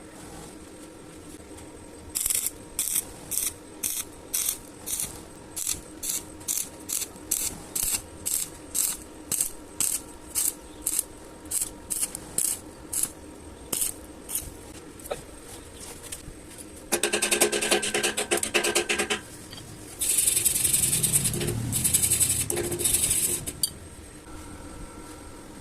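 Welding arc on thin iron, struck in a long run of short bursts about two a second, the pulsed stitch technique used to keep thin metal from burning through. Later comes a couple of seconds of buzzing arc, then a steadier weld of about three and a half seconds near the end.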